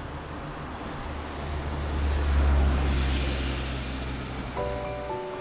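Low rumble of a vehicle passing through a long tunnel, swelling to its loudest about two and a half seconds in and then fading. Music starts near the end.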